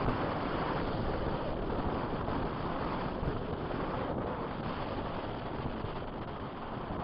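Strong wind rushing and buffeting over the microphone in flight, a steady roar with no breaks.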